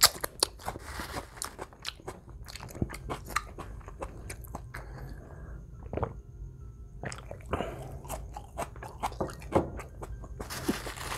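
Close-miked wet chewing and mouth clicks of a man eating a handful of rice and menudo, with swallows as he drinks from a glass of water about midway, then more chewing.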